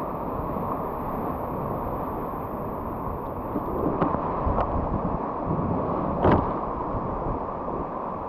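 Steady rushing wind buffeting the microphone, broken by a few short thumps about four seconds in and a louder one a little after six seconds.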